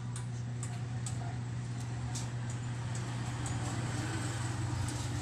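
Steady low background hum over a noisy haze, with a few faint, light ticks scattered through it.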